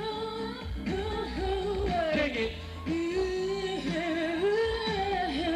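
A woman singing a sustained, gliding melody into a microphone over backing music with a heavy bass line, played through a stage PA.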